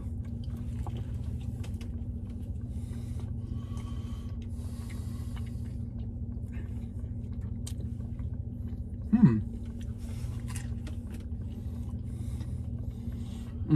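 Chewing a big bite of a fried chicken sandwich, over a steady low hum in a truck cab. About nine seconds in there is a short falling "mm" from the eater's voice.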